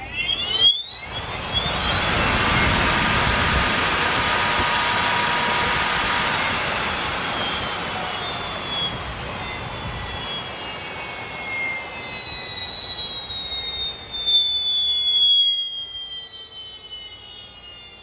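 An 8,000-watt electric bike's motor whining under hard acceleration: the whine climbs quickly in pitch over the first second or two, then a rush of wind and tyre noise takes over. Later the whine slides slowly down in pitch as the bike slows.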